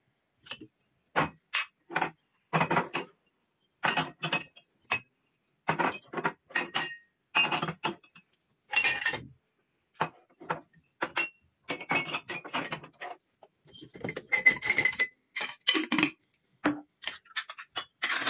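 Glassware and dishes clinking and clattering as they are handled, in many short separate bursts with silent gaps between.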